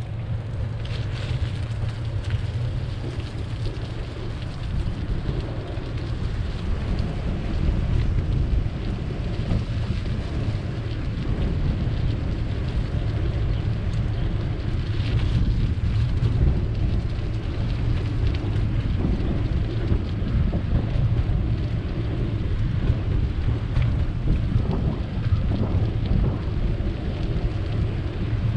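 Wind buffeting the microphone of a camera riding on a moving bicycle: a steady, gusty low rumble.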